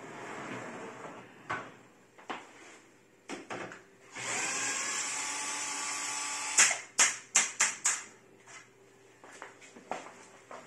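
Power drill-driver running steadily for about two and a half seconds, backing out a screw that holds the oven's top panel, followed by a quick run of sharp clicks and knocks.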